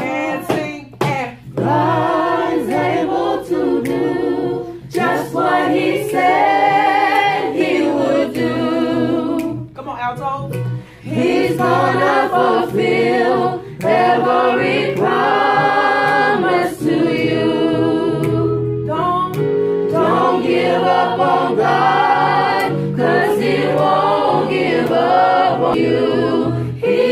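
Choir voices singing a cappella, in held phrases with brief pauses between them.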